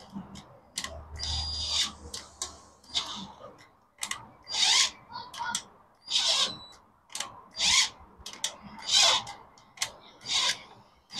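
Ratchet screwdriver handle being worked back and forth in the oil filter cover's M6 screw hole: a ratcheting click and a short metallic rasp on each stroke, repeating about every second and a half.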